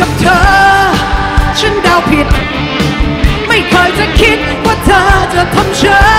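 Live Thai pop-rock band recording: drums, bass and guitars playing under a sliding, vibrato-laden lead melody, loud and dense throughout.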